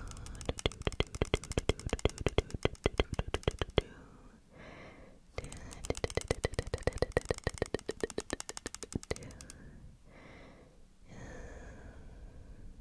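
Comb teeth dragged across the microphone, in two long runs of rapid, even clicks of about nine a second, with soft whispering between them.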